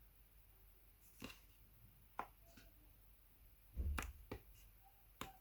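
Jiggly slime being squished and pulled by hand, giving off a series of sharp little pops and clicks, loudest about four seconds in.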